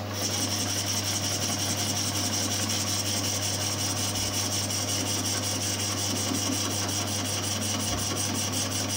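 Metal lathe taking a roughing cut on an out-of-round cast aluminium bronze bar with a carbide tool at 315 rpm. A steady high cutting noise comes in right at the start and holds, over the lathe's constant motor hum.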